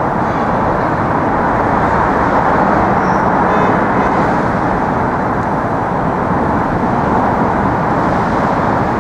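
Steady traffic noise from vehicles crossing the Manhattan Bridge: a dense, even rumble with no single car standing out.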